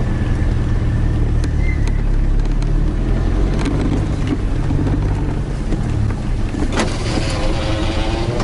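Toyota Hilux engine running with a steady low drone. Near the end a sharp click is followed by a rising whine.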